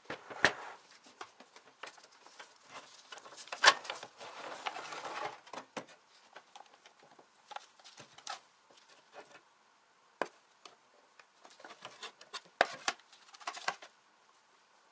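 Sheet-metal parts of an old electric grill being handled and taken apart: irregular clicks and knocks of metal on metal, with a short scraping stretch about four seconds in as the grease-caked drip tray is slid out.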